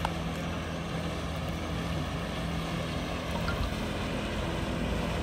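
Small open motorboat's engine running steadily as the boat cruises past close by, growing a little louder near the end.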